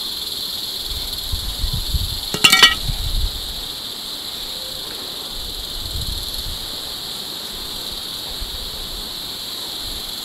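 Steady high chirring of insects, with a few soft low knocks and one short, bright ringing sound about two and a half seconds in.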